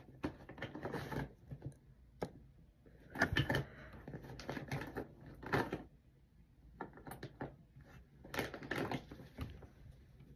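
Scattered soft clicks, taps and short rustles of makeup items being handled on a tabletop while freckles are drawn on with a fine-tipped applicator.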